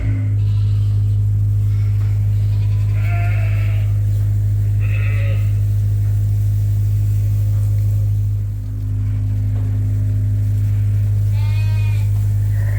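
Sheep bleating three times, over a loud, steady low hum that dips briefly a little past the middle.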